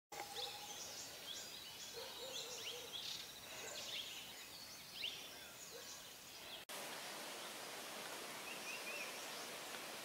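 Many small birds chirping and twittering together in quick, high, overlapping calls. About two-thirds of the way in they cut off abruptly, leaving a steady hiss with a few faint chirps.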